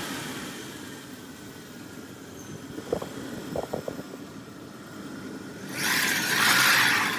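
A car passing by near the end, a rush of tyre and road noise that swells and fades, over a steady low rumble, with a few light knocks about three to four seconds in.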